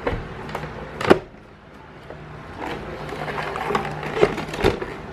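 Plastic induction cooker housing being handled on a workbench: scattered clicks and knocks as the top panel is pressed into place. A sharp knock comes about a second in, and a cluster of knocks and rattles follows near the end as the cooker is turned over.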